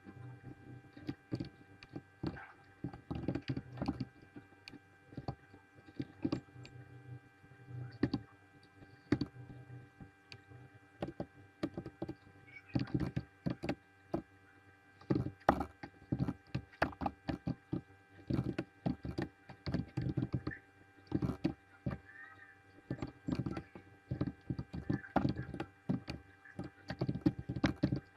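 Computer keyboard typing: quick, irregular runs of keystrokes with short pauses, over a steady low hum.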